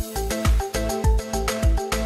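Background music with a steady drum beat under held instrumental notes.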